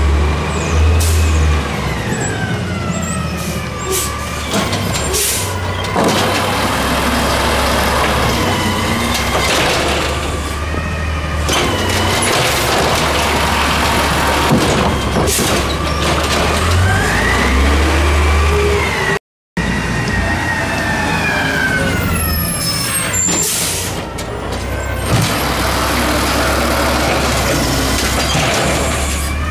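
Natural-gas Freightliner M2 garbage truck running, with its Amrep automated side-loader arm hydraulics whining up and down in pitch as the arm grabs, lifts and dumps a trash cart. Scattered clanks and knocks come from the cart and arm.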